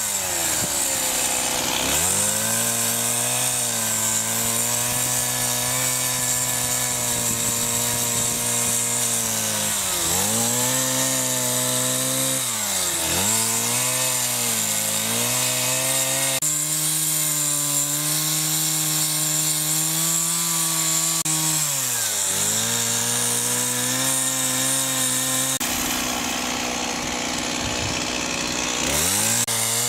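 Petrol chainsaw running at high revs while carving wood; its engine note dips and climbs back several times.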